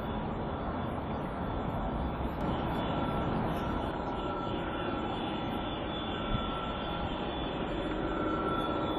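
O scale model diesel locomotive running, a steady mechanical rumble with a thin whine that fades in and out several times.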